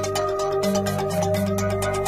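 Electronic background music with a steady beat and a stepping bass line.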